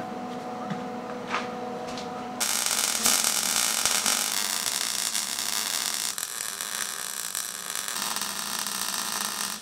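Wire-feed welder arc crackling steadily as a bead is laid on steel plate. It starts suddenly a little over two seconds in, after a low hum.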